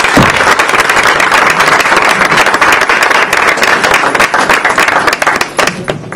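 Audience applauding: dense clapping that thins out and fades near the end.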